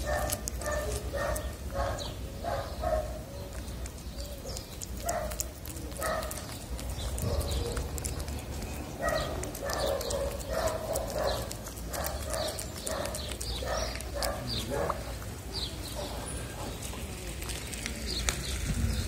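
A cat chewing and smacking wet cat food close to the microphone: a steady run of short, wet smacks and clicks, about three a second.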